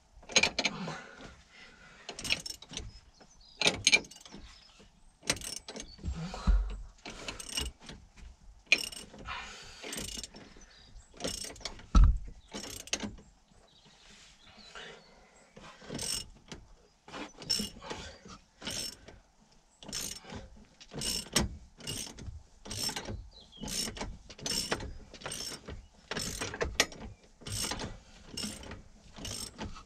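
Hand ratchet clicking in repeated strokes as a shock absorber nut is run down, uneven at first with a heavier knock partway through, then settling into steady strokes about two a second.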